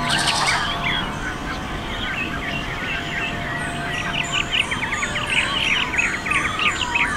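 Many birds singing and chirping at once in a dense, overlapping dawn chorus, with thin high notes joining from about four seconds in. A short rattle sounds right at the start.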